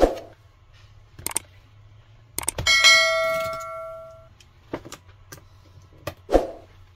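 A bell-like chime, the sound effect of a subscribe-button animation, rings about three seconds in and fades over a second and a half. Around it come a few light knocks and clicks: a laptop being turned over and a screwdriver being handled on a desk.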